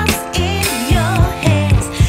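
Background pop music: a melody over bass notes and a steady beat.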